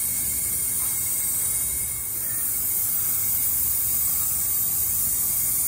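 Steady hiss of compressed air feeding a turbocharged side-by-side's intake tract, held at about 20 psi for a boost leak test, with air escaping at leaking clamps and couplers.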